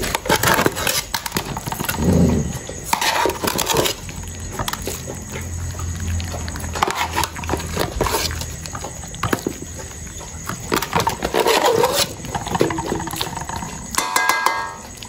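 Several puppies eating rice from metal pots and basins: irregular chewing and lapping, with clinks and knocks of the metal bowls on concrete.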